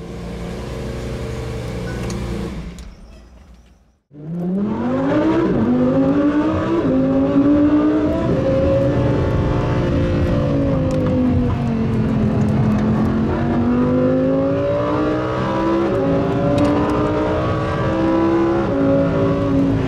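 A steady sound fades away over the first few seconds. Then a car engine comes in loud and revving: its pitch climbs, sags about halfway through, and climbs again, with two abrupt jumps in pitch along the way.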